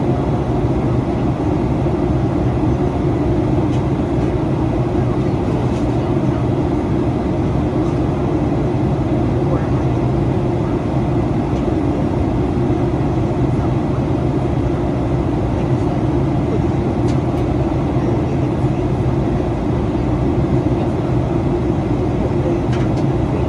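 Steady cabin roar of a Boeing 737-800 in flight, heard from inside the cabin near the front: rushing airflow and CFM56 engine noise with a constant low hum. It stays even throughout.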